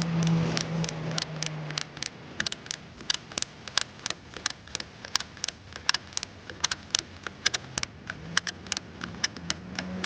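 Ratchet strap being cranked tight, its ratchet clicking about four or five times a second in an uneven run. A low steady hum sounds under the clicks for the first two seconds.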